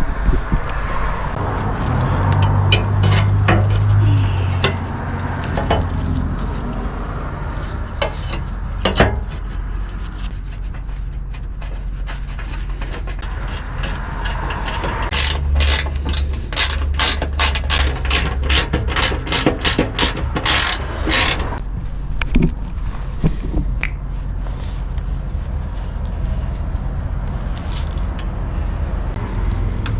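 Ratchet wrench clicking as a cap or plug is tightened back on after draining the engine oil. It gives scattered clicks and knocks, then a fast run of clicks in the middle.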